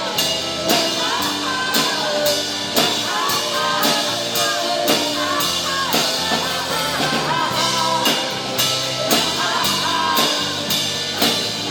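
Live rock band playing: drum kit keeping a steady beat of about two hits a second under bass and electric guitar.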